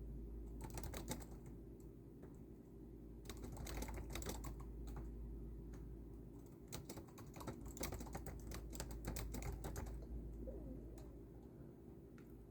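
Typing on a keyboard in runs of quick keystrokes: a short run about a second in, then longer runs from about three to five seconds and from about six and a half to ten seconds, with pauses between. A low steady hum lies underneath.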